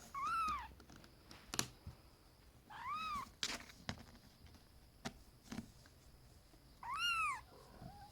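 Kitten meowing three times, high-pitched calls that rise and fall, a few seconds apart, with a few light knocks in between.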